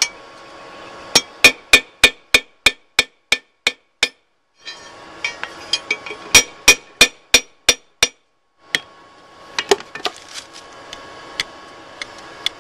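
Ball-peen hammer striking the quarter-inch round-stock pin of a pair of rebar tongs on an anvil, peening the pin over to rivet the two halves together. Quick runs of ringing metal blows, about four a second, with two short breaks, then lighter, scattered blows near the end.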